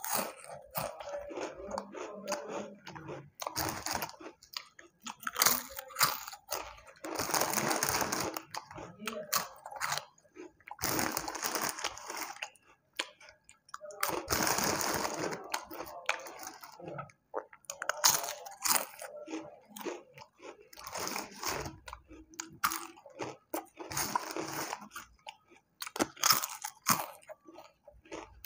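Close-miked crunching and chewing of a crunchy fried snack. It comes in bouts every two to three seconds, with short quieter gaps between them.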